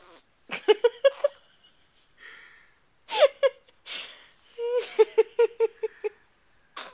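Baby laughing in several short bursts of quick, breathy pulses, the longest run coming near the end at about five pulses a second.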